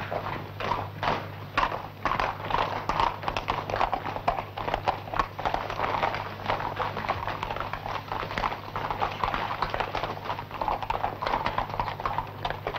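Hooves of several horses clip-clopping at a walk on cobblestones, a dense, irregular run of strikes. A steady low hum runs underneath.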